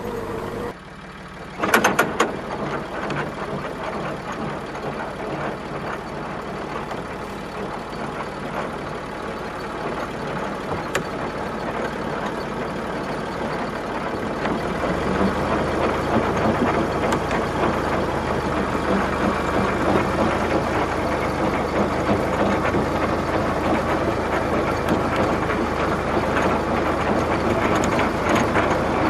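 An engine running steadily, its low rumble growing louder about halfway through, with a loud knock about two seconds in.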